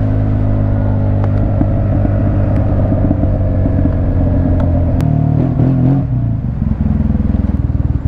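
Yamaha T-Max scooter's parallel-twin engine running as the scooter slows, its pitch sinking gradually. About six seconds in, it settles to an even, pulsing idle as the scooter comes to a stop.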